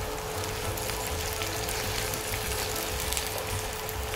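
Chicken pieces, onions and chillies sizzling in oil in a wok as they are stir-fried with a wooden spatula, a steady crackle with fine pops, over a steady hum.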